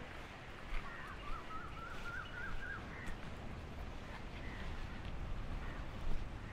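Faint outdoor ambience: a bird calling with a wavering, whistle-like call and a few short chirps, over a low steady rumble, with a few soft footsteps on a gravel and rock path.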